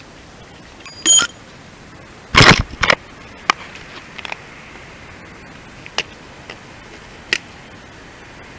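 Handling clicks and knocks of work in a car's front wheel arch: a ringing metallic clink about a second in, a louder clatter of knocks around two and a half seconds in, then a few sharp single clicks over a steady hiss.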